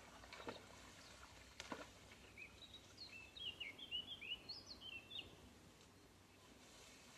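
A small songbird singing faintly: a quick run of short whistled notes that sweep up and down, from about two to five seconds in. Two soft knocks come in the first two seconds, over quiet open-air ambience.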